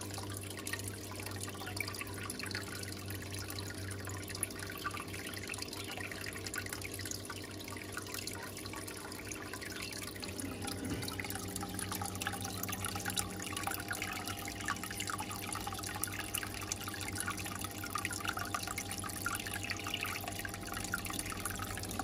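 Aquarium water trickling and dripping steadily over a low, even hum.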